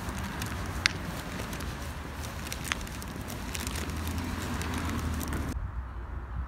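Carried shopping bags rustling and crinkling with footsteps while walking on a pavement, with a couple of sharper clicks. About five and a half seconds in it drops to a quieter, duller outdoor background.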